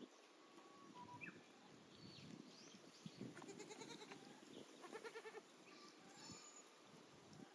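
Faint goat bleating, a wavering, pulsing call about halfway through.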